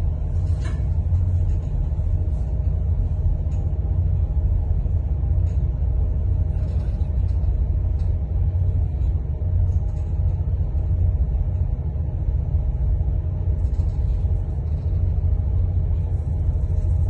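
Steady low rumble of a boat's engine running, even in level throughout.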